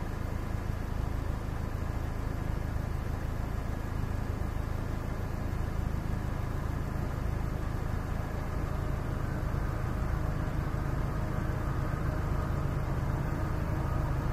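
The diesel engines of an approaching freight train led by an SD60E and an SD70ACe, a steady low drone that grows slightly louder toward the end.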